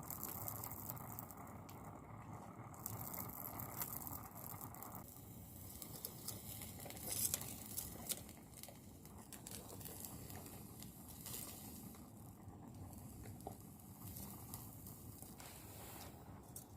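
Faint crinkling with scattered light clicks and taps, a small cluster of them louder about seven seconds in, over a soft steady hiss that stops abruptly about five seconds in.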